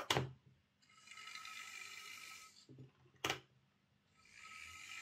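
Heljan Class 17 OO-gauge model locomotive chassis running on a test track: its motor and flywheel drive whine steadily for about two seconds, stop, and start again, with two sharp clicks, one at the start and one in the pause. The drive sounds smooth, its flywheels back on their proper ends of the motor shaft.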